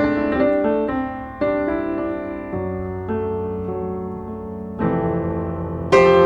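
Background music: solo piano playing sustained chords and notes, each struck and slowly fading.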